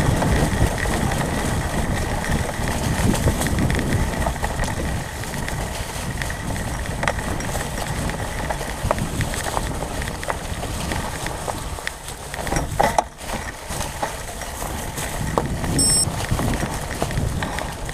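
Mountain bike rolling along a trail covered in dry fallen leaves: tyres crunching through the leaves and the bike rattling over bumps, with a heavy low rumble of wind on the mic. A cluster of loud knocks comes about thirteen seconds in as the bike jolts.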